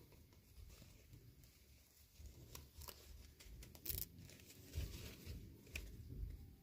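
Packaging being torn open and crinkled by hand during a toy unboxing, with scattered sharp clicks and soft handling bumps, the sharpest crackle about four seconds in.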